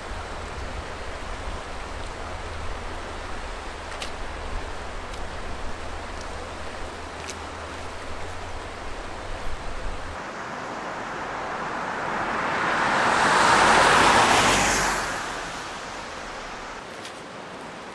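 Wind buffeting the microphone with a low rumble that stops abruptly about halfway through. A broad whoosh then swells and fades over about four seconds.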